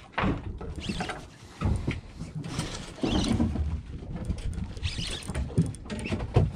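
Spinning reel being wound under load, its gears and line roller working in uneven bursts as a hooked fish is reeled in on a bent rod, over a low rumble.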